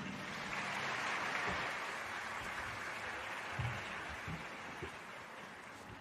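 Audience applauding after the music stops, slowly fading, with a few soft low knocks.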